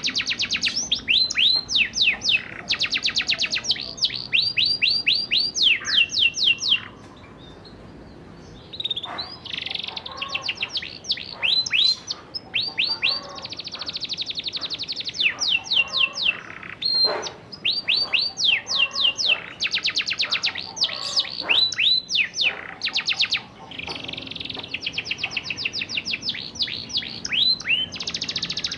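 Domestic canary singing: fast trills of rapidly repeated downward-sweeping notes in phrases about a second long, switching from one phrase type to the next, with a short pause about seven seconds in.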